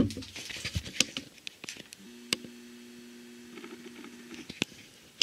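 Camcorder being handled while zooming in: scattered light clicks and taps, with a faint steady hum from the zoom motor for about two seconds in the middle.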